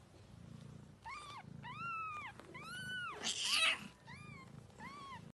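Cat mewing: about six short, high-pitched mews, each rising and falling in pitch. A brief rough burst of noise a little past the middle is the loudest moment.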